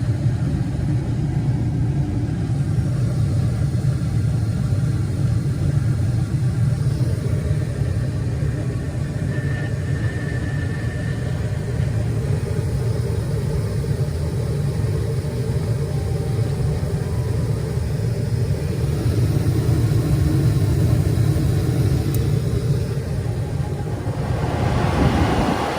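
Gas furnace running after ignition: a steady low rumble of the burners and exhaust fan. Near the end a broader rush of air comes in as the blower fan starts, and the furnace is running normally.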